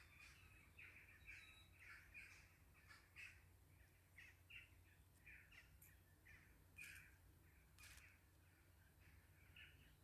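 Near silence with faint, short bird calls repeating throughout, a few notes a second.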